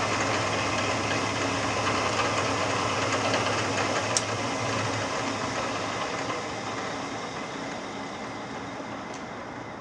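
Standard Modern 11 x 20 engine lathe running under power, its 1.5 hp single-phase motor and headstock gearing humming steadily. A sharp click comes about four seconds in, and soon after the hum dies away as the spindle coasts down.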